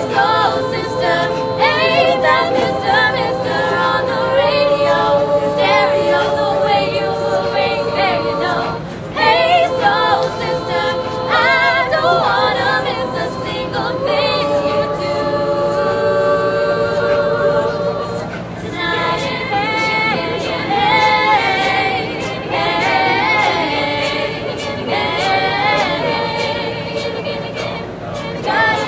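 Mixed-voice a cappella group singing, with several voices holding sustained chords under a moving melody line.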